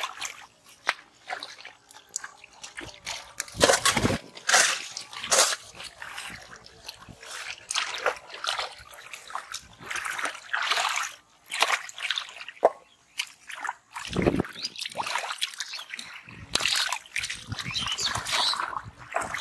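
Hands splashing and sloshing through shallow muddy water and scooping mud, groping for fish, in irregular bursts.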